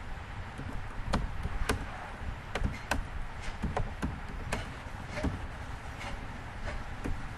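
Computer keyboard being typed on: a dozen or so sharp key clicks at an irregular pace, over a steady low background hum.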